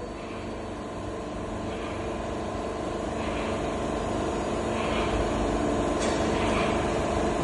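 CNC lathe running: a steady machine hum with several fixed tones. It grows gradually louder, and a soft hiss recurs about every second and a half.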